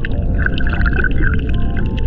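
Underwater sound picked up by a submerged camera over a coral reef: a low, muffled water rumble with scattered crackling clicks.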